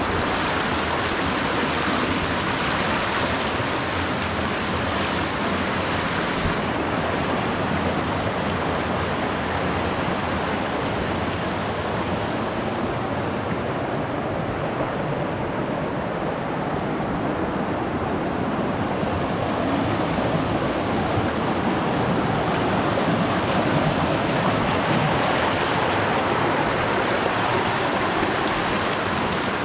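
Shallow mountain creek rushing over stones and small cascades: a steady, even rush of water. The brightest hiss falls away a little about six seconds in.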